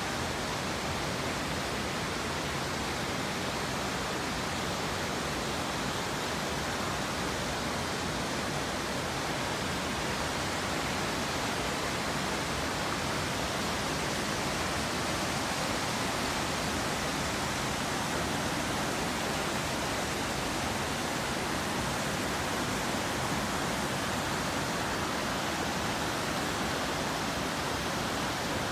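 Waterfall pouring down rock ledges into a pool below, a steady, unbroken rush of falling water.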